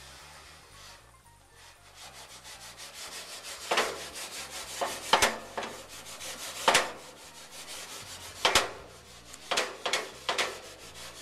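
An enamelled cast-iron pot of chopped onions and peppers being shaken and slid back and forth on a gas grill's metal grate: fast, continuous scraping, with about half a dozen louder knocks as the pot jolts.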